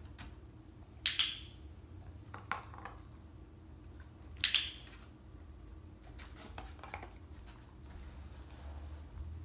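Dog-training clicker clicked twice, about a second in and again about four and a half seconds in, each a sharp double click marking the right behaviour. Fainter knocks and rustles come in between.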